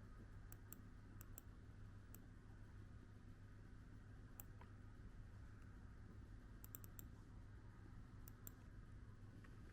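Near silence: room tone with a low steady hum and a dozen or so faint, sharp clicks at irregular intervals, some in quick clusters.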